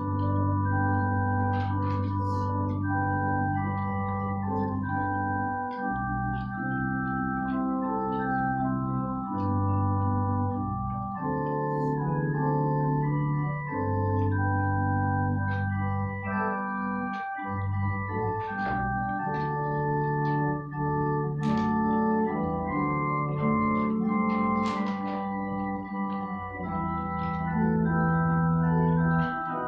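Organ music in slow, held chords that change every second or two, starting abruptly and carrying on throughout, with a few soft clicks over it.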